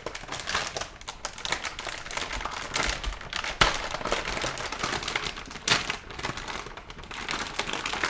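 Plastic packaging crinkling and rustling, with irregular clicks and taps as a graphics card is handled and lifted out of its box, and two sharper knocks midway.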